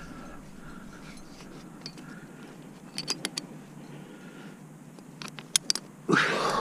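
Metal clinks of karabiners and quickdraws as a lead climber handles the rope at a quickdraw: a few sharp clicks about three seconds in and a quick cluster a little after five seconds, fitting the rope being clipped through the gate. A louder rushing noise begins near the end.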